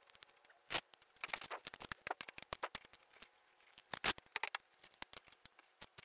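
Ratchet and socket clicking as they are handled and fitted onto the brake caliper bolt: a run of quick, uneven metal clicks, with louder clacks just under a second in and about four seconds in.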